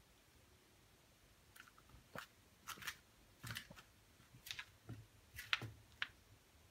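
Foil-and-plastic cat-food pouches crinkling in a string of short, irregular crackles as a cat picks through a basket of them.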